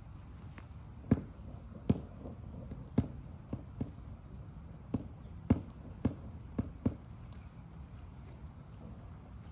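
A series of about ten sharp, irregular knocks, some close together in pairs.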